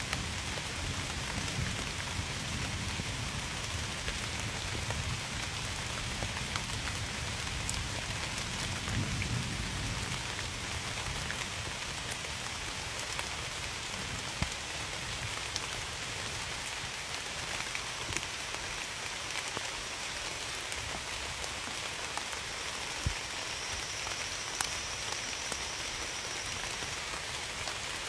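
Steady rain falling, with scattered sharp drip ticks on top. A faint, thin, high steady tone sounds in the second half.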